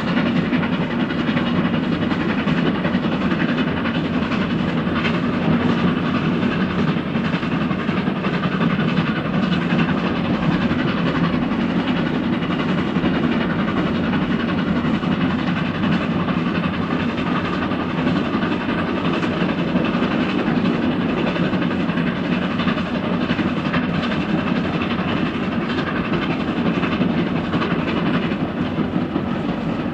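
Steam-hauled train running steadily on the rails, a continuous noise of wheels on track.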